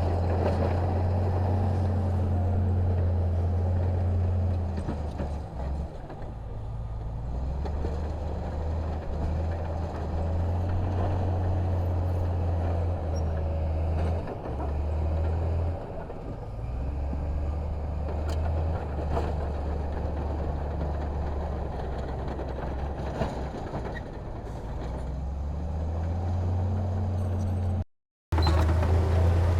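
Heavy diesel construction machinery running, a deep steady engine hum that shifts in level as the load changes. The sound cuts out completely for a moment near the end.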